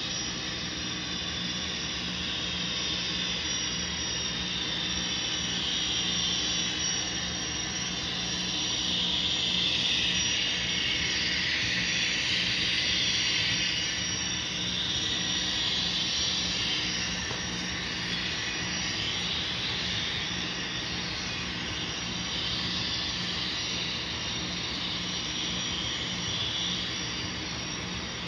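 Sound-equipped model of Union Pacific gas-turbine locomotive #18 running under load, its turbine whine a steady jet-like rush that swells about ten seconds in and then eases, with a steady low hum underneath.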